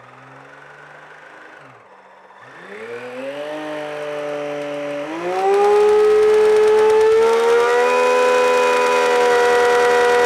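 3D-printed twin-rotor supercharger spun by a Castle Mamba brushless RC motor: a short rev that falls away, then the blower spins up again, climbing in pitch, stepping up to full throttle about five seconds in, and holding a loud, steady whine.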